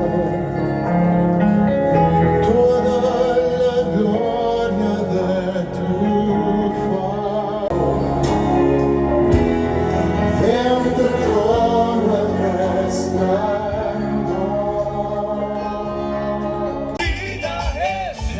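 Background music: a song with a male singing voice over instrumental accompaniment, changing to a different, livelier section near the end.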